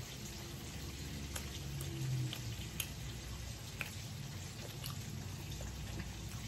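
Faint steady sizzle with scattered small crackles from burgers frying in a pan.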